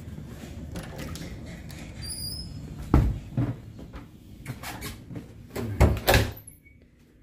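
A door being opened and shut: a brief high squeak about two seconds in, then two heavy thumps about three seconds apart.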